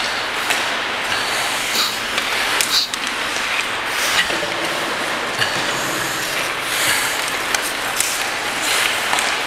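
Ice skate blades scraping and carving the ice in a steady rush of noise, with scattered sharp clacks of hockey sticks and puck.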